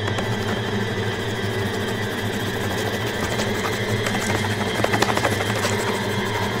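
A steady, loud, buzzing mechanical drone with a rapid rattle in it, like a small machine running.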